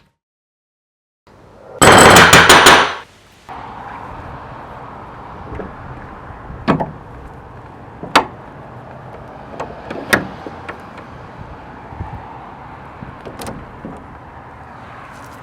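A loud harsh burst of noise about two seconds in, then a steady hiss with a handful of sharp metal clinks and knocks, each ringing briefly.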